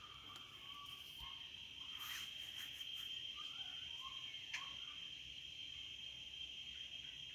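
Crickets trilling steadily at one high pitch, with short, softer calls of some other animal now and then. A few brief crackles come about two seconds in and again near the middle.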